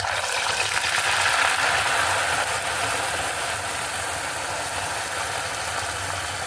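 Plantain slices frying in hot oil: a steady sizzle that starts suddenly and slowly eases.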